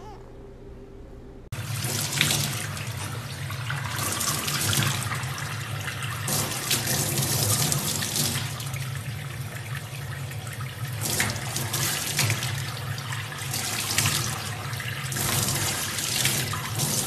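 Tap water running hard into a stainless steel sink, splashed about by a young chimpanzee playing in the stream, with repeated surges of splashing. It starts suddenly about a second and a half in.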